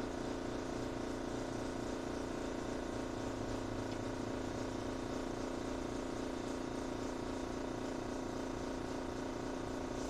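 Air compressor running with a steady, even motor hum that does not change.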